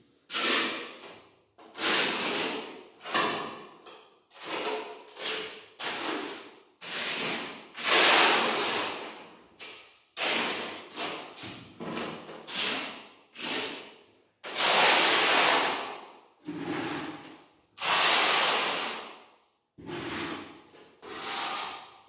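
Steel notched trowel scraping cement-based tile adhesive across the back of a wood-look porcelain tile, in repeated strokes of a second or so with short pauses between, some strokes longer. This is back-buttering the tile and combing the adhesive into ridges before laying it.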